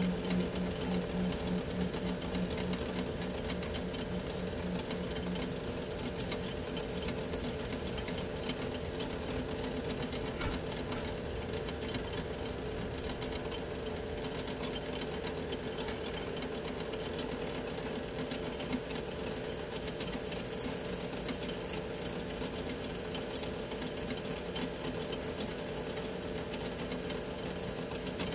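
Metal lathe running while a small boring bar cuts the bolt-nose recess into the face of a rifle barrel's threaded tenon: a steady machine hum, with a fast even pulsing for the first five seconds or so.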